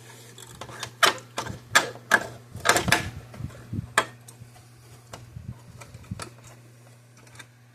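Irregular sharp plastic clicks and taps as a cable tie is worked and cinched down by hand, thickest in the first half and sparser later, over a steady low hum.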